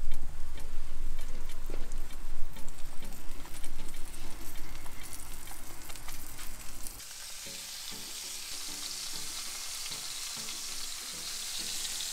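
Flour-coated beef rouladen searing in hot oil in a roasting pan on a gas grill: a steady sizzle with crackling pops. The first half is louder with a low rumble under it; about seven seconds in it drops to a quieter, even, high sizzle.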